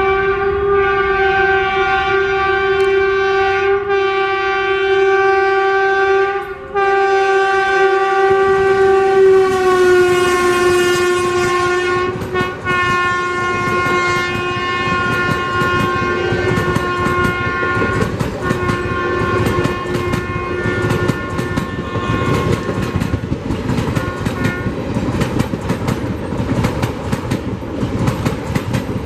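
Indian Railways WAP4 electric locomotive's horn sounding almost without a break as a warning to people crossing the track. It is cut off briefly about six and a half seconds in, its pitch steps down slightly about nine seconds in, and it fades out a few seconds before the end. From about twelve seconds in, the passing coaches' wheels add a fast clickety-clack over the rail joints.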